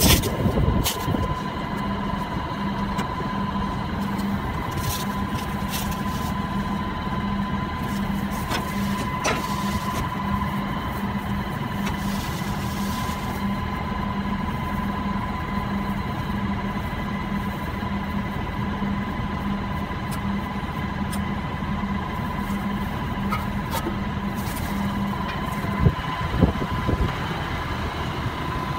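Krone Comprima CF 155 XC round baler mechanism running with its chamber rollers turning as net wrap is fed. It makes a steady whine over a regular pulsing throb; the throb stops near the end, where there are two sharp knocks.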